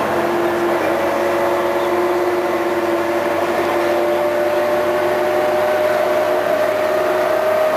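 IVECO 580.12.21 bus's engine and ZF gearbox running under way, heard from inside the cabin: a steady drone with a whine that rises slowly in pitch as the bus gathers speed.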